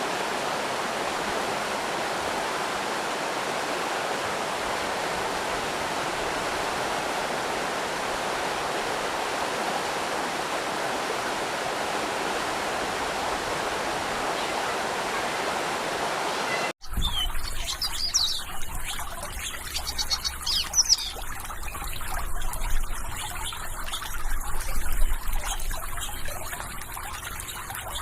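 Steady rush of a flowing stream; it cuts off abruptly about two-thirds of the way through, giving way to small birds chirping in quick high bursts over a low rumble.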